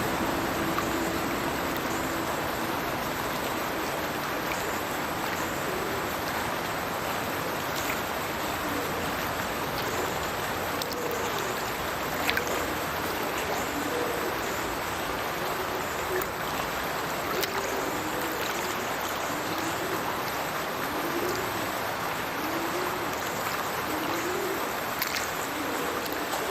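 Stirches Burn falling from its culvert into the River Teviot: a steady rush of falling and running water. From about ten seconds in, short low hooting calls repeat roughly once a second over the water.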